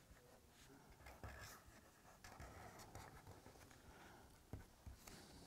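Faint scratching strokes of a black ink pen drawing on paper, in short, quiet, irregular strokes.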